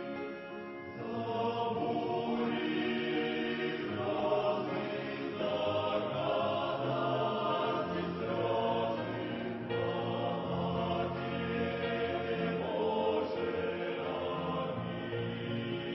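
A choir singing a Christian hymn in long held chords that change every second or two.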